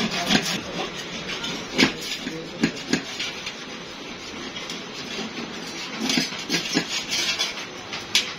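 Large hand shears snipping the excess steel sheet from around the rim of a pressed steel tray: sharp metallic snips at irregular intervals, with the sheet clattering as it is turned, several in quick succession about six seconds in.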